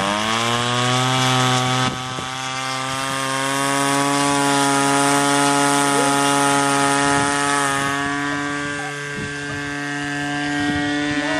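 RC model airplane's motor and propeller spinning up at the start, then running at a steady high buzz while the plane is held for a hand launch. The loudness dips briefly about two seconds in and again around nine seconds, then rises.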